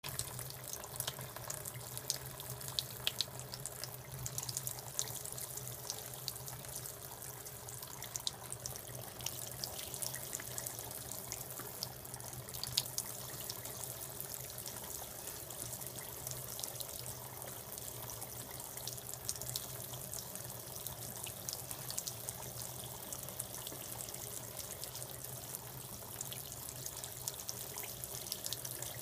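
Tap water running into a bathroom washbasin while a cat laps at it, with small splashes and drips scattered throughout. A steady low hum sits underneath.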